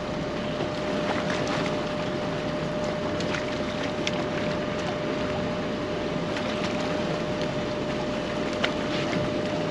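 Small fishing boat's engine running steadily, with a thin steady whine over it and wind on the microphone; the whine cuts out near the end, and there are a few light knocks.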